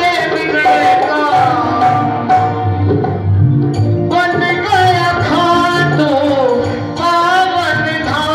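A Hindi devotional bhajan: a man singing a gliding melody over hand-drum accompaniment, with a short break in the voice about halfway before the line resumes.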